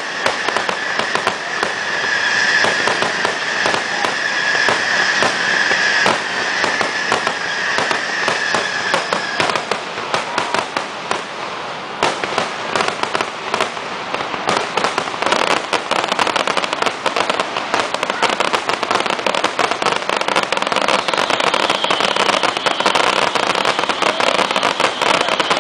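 Fireworks display going off in a rapid, continuous barrage of bangs and crackles. A steady high whistle runs through the first ten seconds or so, and the barrage grows denser in the second half.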